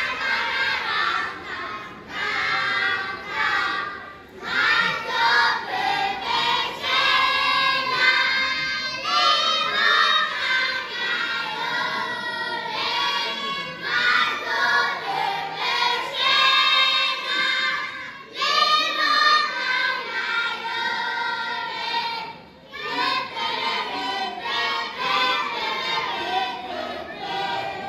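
A group of children singing a song together, the phrases broken by short pauses a few times.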